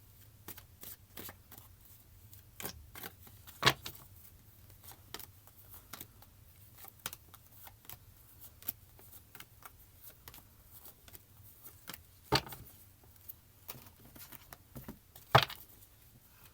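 Tarot cards being shuffled and handled: a run of soft, irregular flicks and clicks, with three louder slaps spread through.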